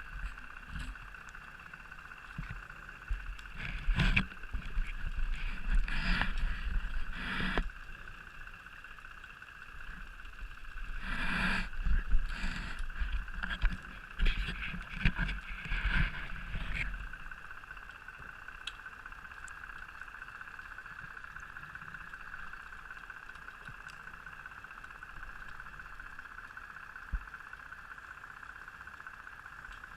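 Scuba diver's regulator underwater: two bouts of noisy exhaled-bubble bursts, over a steady high hum that runs on alone after the second bout.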